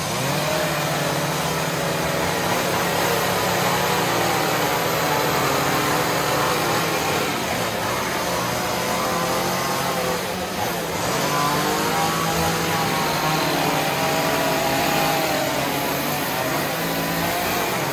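Chainsaw engines running and revving up and down as they cut into wood, more than one saw going at once.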